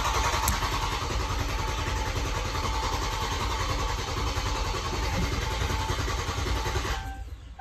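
Starter motor cranking a 2023 Dodge Charger Scat Pack's 6.4-litre HEMI V8 with the throttle floored (clear-flood mode), so the engine turns over steadily without firing while it builds oil pressure on fresh oil. The cranking stops suddenly about seven seconds in.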